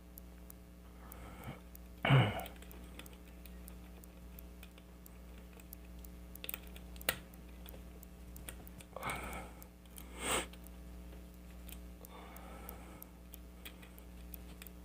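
Faint small metal clicks and scrapes of a hook pick raking and setting pins inside a pin-tumbler lock held under a tension wrench. A few louder knocks stand out, the loudest about two seconds in, others near seven and ten seconds.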